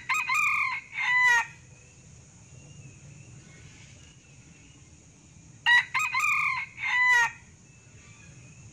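Sumatran red junglefowl cock crowing twice, about five and a half seconds apart. Each crow is short and clipped, about a second and a half long: a brief first note, then longer notes that stop abruptly. A faint steady high-pitched drone runs underneath.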